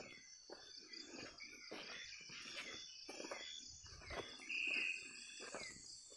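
Night insects, crickets and katydids, chirring steadily in tropical forest, with one louder high trill for about a second near the end. Irregular crunching footsteps on leaf litter run through it.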